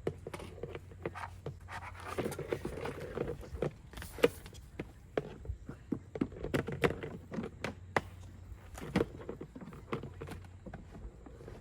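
Irregular clicks and light knocks from handling plastic ride-on toy parts and assembly tools, with one sharper knock about four seconds in.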